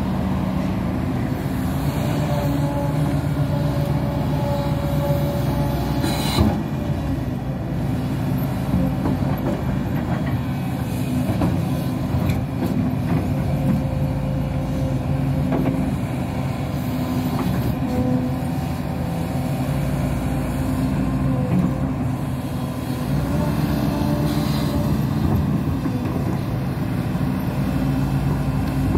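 Hidromek 230LC excavator's diesel engine and hydraulics working under load while digging stony ground, the engine note shifting as the load changes. A sharp knock comes about six seconds in.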